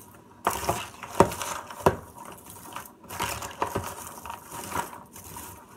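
Caramel-coated popcorn being stirred and tossed with a wooden spoon in a plastic bowl. It makes an irregular crunchy rustling with sharp clicks and knocks; the loudest come about a second and about two seconds in. The caramel has set hard, so the clumped kernels crunch as they are worked apart.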